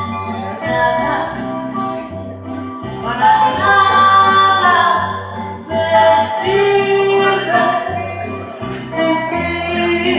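A woman singing a bolero into a microphone over an instrumental accompaniment with a steady bass line, her voice swelling in long sung phrases.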